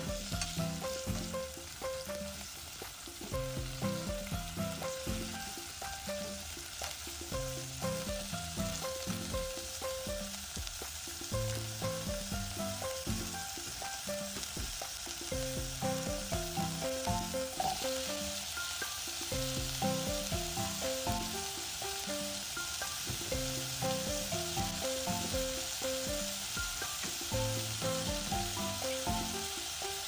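Chicken thigh pieces sizzling as they fry in oil in a nonstick pan; the sizzle gets louder a little over halfway through. Light background music with short repeated notes plays along.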